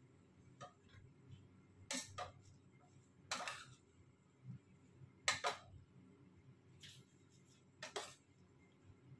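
Light clinks and knocks of a spoon against a stainless steel pot as leafy greens are stirred in: about six short, sharp strikes spaced a second or so apart, over a faint low hum.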